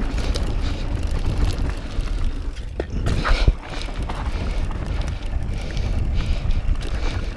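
Wind buffeting the microphone over the rattle and crunch of a mountain bike rolling down a rocky trail, with a louder rough patch about three seconds in.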